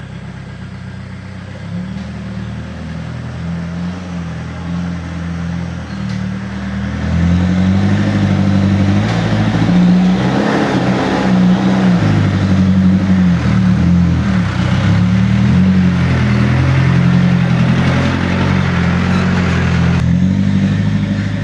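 Diesel engine of a loaded light dump truck pulling along a rough dirt track, its revs rising and falling. It gets louder from about seven seconds in as the truck comes close, then carries on as it drives away.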